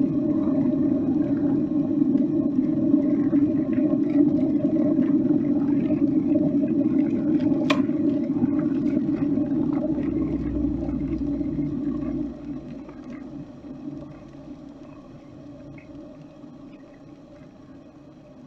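Water boiling hard in a kettle, a steady rumbling bubbling, with a single sharp click about eight seconds in. About twelve seconds in the boiling drops off abruptly and fades away to a faint, dying simmer.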